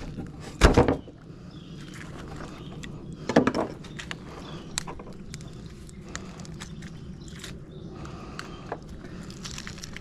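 Crackling and clicking of bone and cartilage as a large sheepshead's head is twisted and pried loose by gloved hands, working the head bone out of its socket. Two loud thumps, about a second in and about three and a half seconds in.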